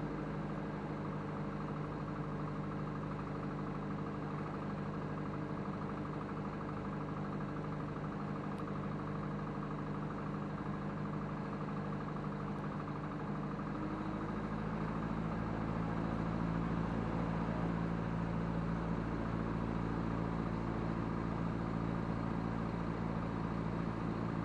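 Single-engine light aircraft's piston engine and propeller running steadily at low taxi power, heard from inside the cockpit. About halfway through the engine speed rises a little and holds there.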